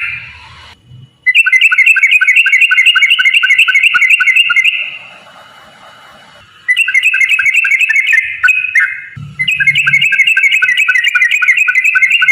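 Yellow-vented bulbul singing in long, rapid runs of bubbly whistled notes, three bouts separated by short pauses.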